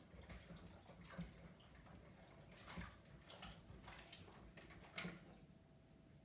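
Faint water sounds of vegetables being washed in a kitchen sink, with a few brief splashes.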